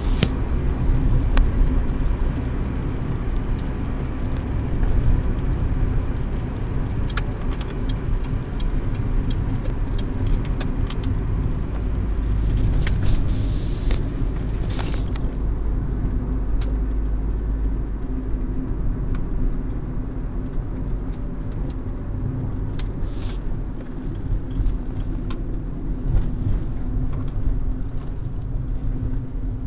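Honda Civic EK3 driving: a steady low engine and road rumble, with scattered short clicks and knocks, some in quick clusters.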